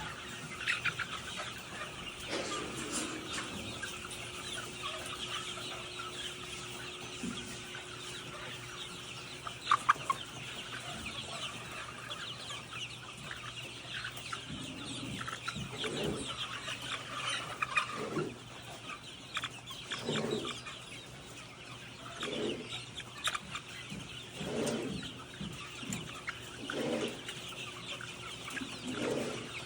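A flock of nine-week-old Lohmann chickens chirping and clucking together in a dense, continuous chatter. From about halfway, lower single clucks come every second or two over it. A couple of sharp knocks about ten seconds in.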